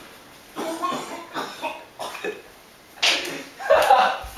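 Men coughing, gagging and laughing in short bursts, the hardest burst about three seconds in, reacting to the stink of spoiled food in a dead fridge.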